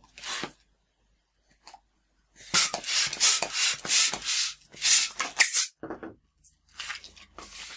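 Hand balloon pump inflating a 260 twisting balloon: a run of quick airy pump strokes, about three a second, lasting some three seconds, then softer handling sounds of the latex near the end.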